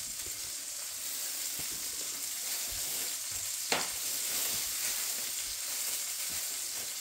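Sausage links sizzling in a frying pan: a steady hiss of frying fat with small crackles, and one sharper pop a little past halfway through.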